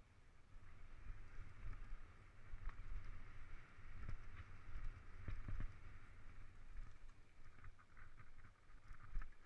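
Mountain bike rolling along a dirt singletrack: a steady low rumble of tyres and wind, with scattered clicks and rattles from the bike, busiest about four to six seconds in and again near the end.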